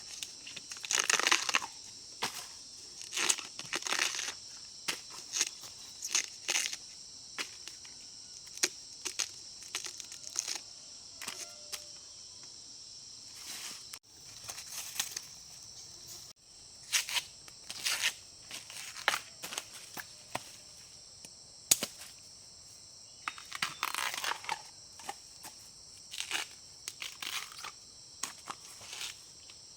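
Irregular dry crackling and tearing of plant material being broken and stripped, in clusters of sharp snaps, over a steady high-pitched drone of insects.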